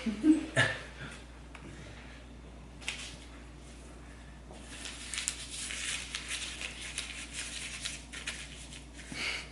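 Close rustling and crinkling of handled material for about four seconds in the middle, made of many small clicks and scrapes, with a brief voice sound at the start.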